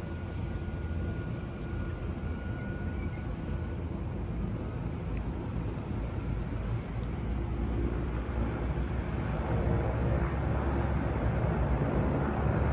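Steady drone of boat and floatplane engines on the harbour water, growing louder over the last few seconds.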